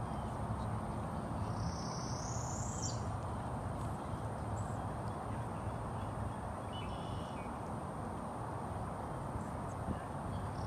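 A bird giving a thin, rising whistled call about two seconds in, over a steady low background rumble.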